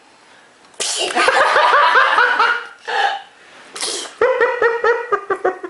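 High-pitched laughter in two long runs of 'ha' syllables, about seven a second, beginning about a second in, with a sharp breath drawn between the runs.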